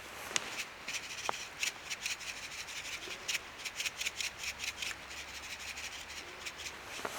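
Quick, irregular rubbing or scraping strokes, several a second.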